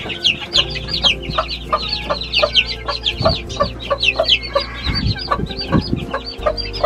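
A brood of young chicks peeping constantly, many quick high-pitched chirps overlapping, with hens clucking underneath.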